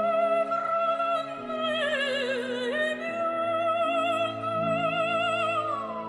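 Operatic solo voice singing a long high note with vibrato over sustained low accompaniment. The note wavers and dips about two seconds in, recovers, then falls near the end.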